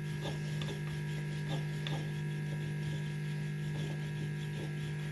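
Steady low electrical hum, with a few faint soft taps from handling in the kitchen.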